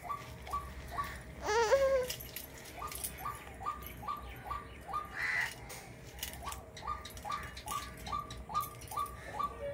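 A bird calling over and over in a steady series of short, falling notes, about three a second. A loud, brief wavering cry about one and a half seconds in, and scattered light clicks and scrapes from a knife scaling small fish.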